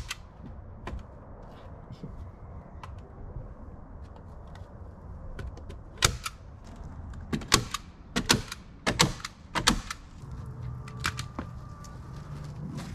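Sharp clacks and knocks of hand-tool work on a wooden base board: a few single strikes, then a quick run of them, often in pairs, between about six and ten seconds in.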